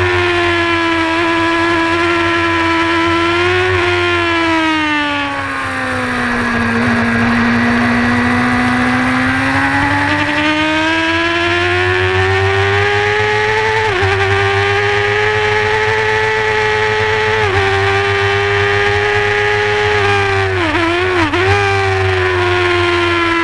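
Honda supersport race motorcycle engine at high revs, heard from on board the bike. Its pitch falls under braking and downshifting about a third of the way in, then climbs steadily under acceleration. It is cut by two quick upshifts in the middle and a brief stutter of downshifts near the end.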